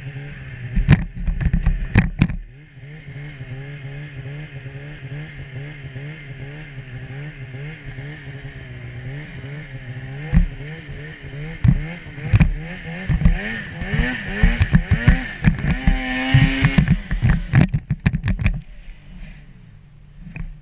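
Polaris Pro RMK 800 two-stroke snowmobile engine revving up and down through deep snow, with knocks and clatter from the sled over bumps. A hard rev a little past the midpoint is followed by a run of thumps as the sled crashes, and the engine then drops to a low, steady idle near the end.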